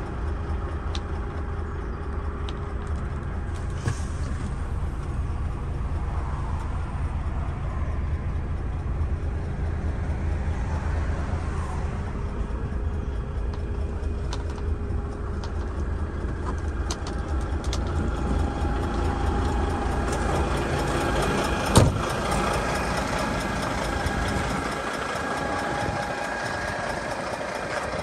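DAF XF106 460's PACCAR MX-13 six-cylinder diesel idling steadily with a low rumble. A single sharp knock comes about three-quarters of the way through, and the low rumble falls away soon after.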